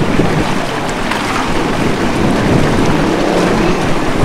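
Wind buffeting the microphone: a steady, loud rushing rumble.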